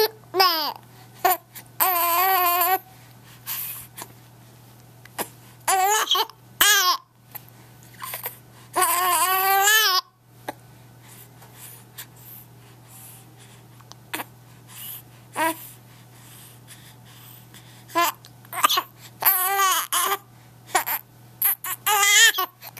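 A baby fussing and crying in short bouts of high-pitched, wavering wails, upset by her hiccups, with brief sharp sounds in the quieter gaps between the cries.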